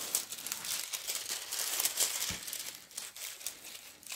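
Clear plastic protective film on a diamond painting canvas crinkling and rustling as hands smooth and flatten it.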